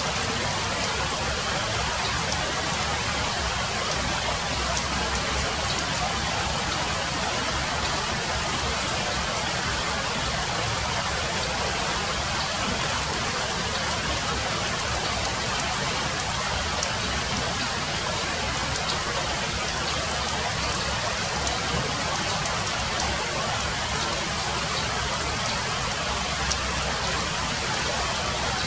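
Steady rain falling, an even unbroken hiss, with a few faint single taps of drops now and then.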